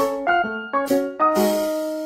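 Background music: a piano melody of short notes stepping up and down, each struck note fading quickly before the next.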